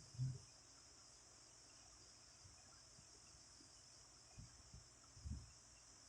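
A person snoring in sleep: a short low-pitched snore about a quarter second in, then faint low breathing sounds a little after four seconds and again around five seconds. A steady faint high-pitched hiss runs underneath.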